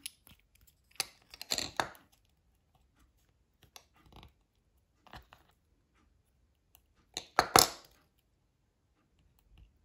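Handling noise of thin beading wire being threaded through a bead and a wind-chime top disc: small scratches and clicks, with two short clusters of rustling and clicking, the first about a second in and the loudest a little after seven seconds in.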